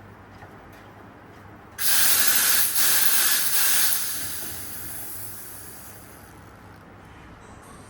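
Conti espresso machine letting off a sudden hiss of steam about two seconds in, loud for roughly two seconds with brief breaks, then dying away over the next few seconds.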